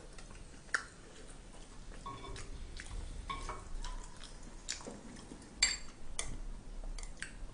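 Metal chopsticks clicking and scraping against a frying pan and a ceramic bowl, with a few sharp clicks among softer taps, and chewing in between.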